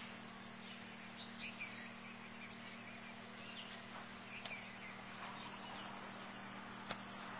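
Faint outdoor ambience with a few short bird chirps about a second in, over a steady low hum, and a single sharp click near the end.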